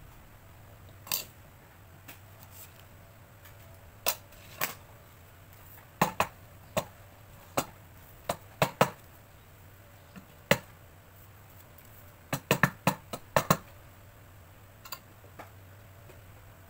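Metal binder clips clicking as they are opened and knocking as they are set down on the board of a paper trimmer while the clipped paper pad is handled. About twenty short, sharp clicks and taps, with a quick run of them about twelve seconds in.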